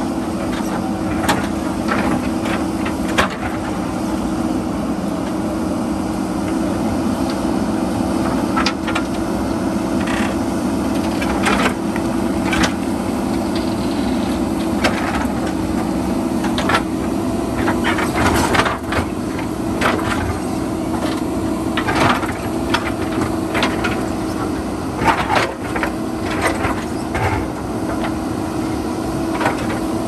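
JCB backhoe loader's diesel engine running steadily under load, with irregular knocks and cracks as the bucket scrapes and breaks into rock.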